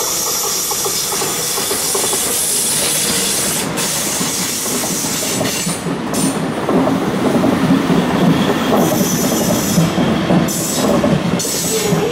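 DB class 110 electric locomotive and its Intercity coaches rolling slowly through a station. A steady rushing sound gives way, about halfway in, to a louder rumble and clatter of coach wheels on the rails.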